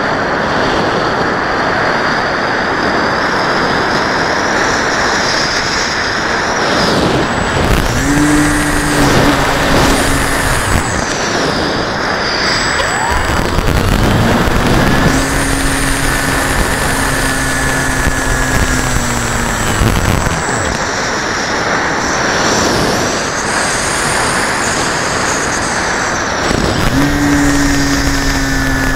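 Air rushing over the onboard microphone of a model airplane in flight, with the motor and propeller humming in and out as the throttle changes: a steady note comes in about 8 seconds in, again for several seconds in the middle, and again near the end, each time sagging slightly in pitch.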